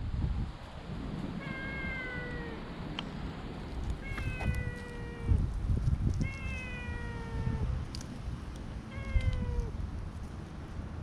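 A stray cat meowing four times, each meow about a second long and falling slightly in pitch, a second or two apart.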